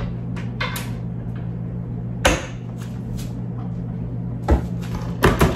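Kitchen cabinet door opened and dishes knocked about as they are taken out: a handful of sharp knocks and clatters, the loudest about two seconds in and several more near the end, over a steady low hum.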